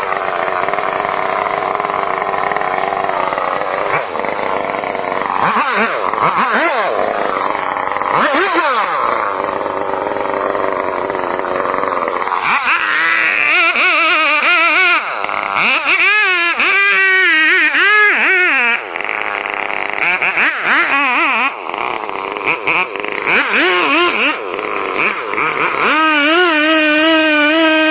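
Two-stroke chainsaw running and cutting into a large tree, its engine speed wavering up and down repeatedly as it works through the wood.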